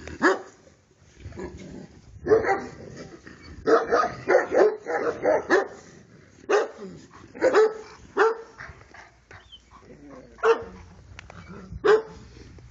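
Central Asian Shepherd dog barking in single loud barks, with a quick run of about half a dozen barks around four to five seconds in and a few spaced barks after.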